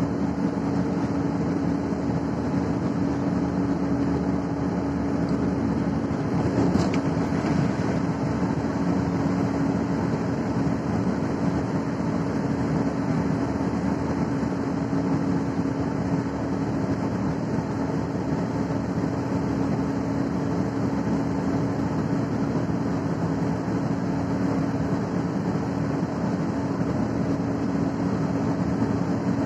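Steady engine and tyre noise of a vehicle driving, heard inside the cabin, with a constant low hum and a brief click about seven seconds in.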